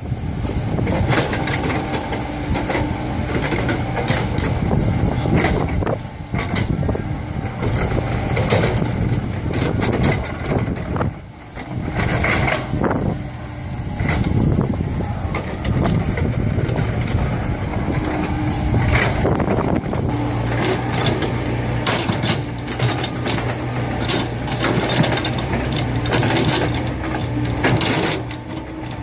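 Komatsu PC70 excavator working: its engine runs steadily under load while the machine moves soil, with frequent sharp metallic clanks and knocks. The engine eases off briefly about a third of the way in.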